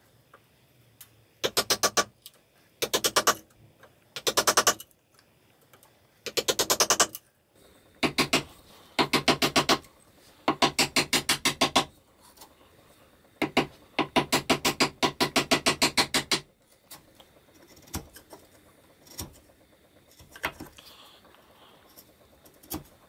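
A mortise chisel struck with a mallet, chopping a mortise straight down into a cherry chair leg: short, fast flurries of sharp knocks. These give way to a few single knocks for the last third.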